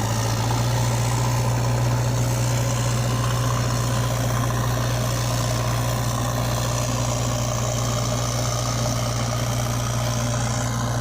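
Engine idling: a steady, even low drone that does not change.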